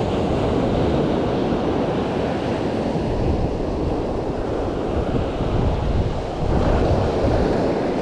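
Steady rushing noise of sea and wind, with wind buffeting the microphone, swelling slightly about two-thirds of the way through.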